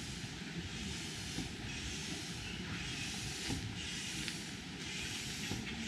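Steady outdoor hiss with a low, fluttering rumble on a hand-carried action camera's microphone, swelling softly about once a second.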